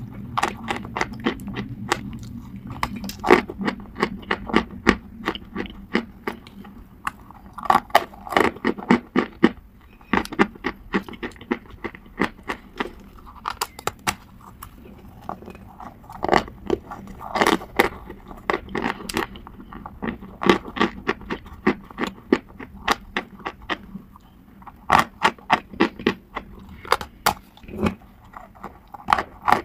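A thick disc of white chalk being bitten and chewed: a run of sharp, dry crunches and crackles coming in irregular clusters.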